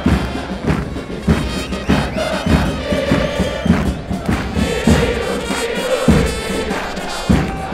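Argentine football supporters singing a chant in unison as a mass crowd, with bass drums (bombos) beating heavily beneath the singing.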